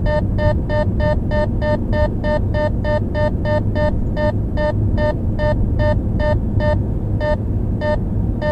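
Radenso Pro M radar detector sounding a Ka-band alert (34.7 GHz): a repeating electronic beep that slows from about five beeps a second to about two, with a short gap near the end. The beep rate follows the radar signal's strength. The car's steady road rumble runs underneath.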